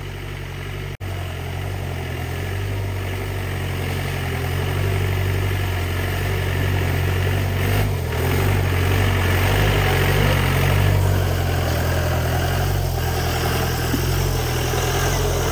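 Off-road 4x4's engine running steadily on a hill-trail drive, growing gradually louder over the first several seconds, with a momentary cut about a second in.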